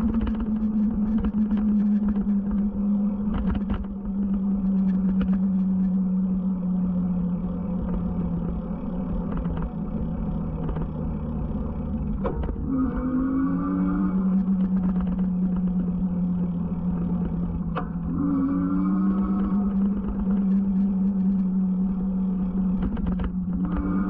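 Electric bike in motion: a steady motor hum that shifts pitch slightly now and then, over wind rumble on the action camera's microphone. Two brief gliding whines come about halfway and three quarters through.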